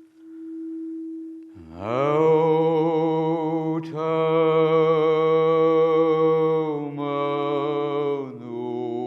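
Human voices toning in a sound-healing chant: a single held note, then about a second and a half in a deep voice slides up into a long sustained chord of held notes rich in overtones, which shifts twice near the end.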